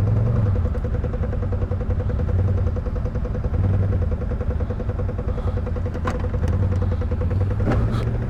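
ATV engine running at low, fairly steady speed as the quad crawls a rocky trail, its level swelling and easing a little. A few sharp clicks or knocks come in the second half.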